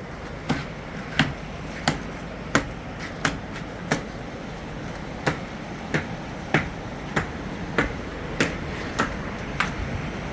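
A steady series of sharp striking blows, about three every two seconds, with a short pause about four seconds in, over a low steady background noise.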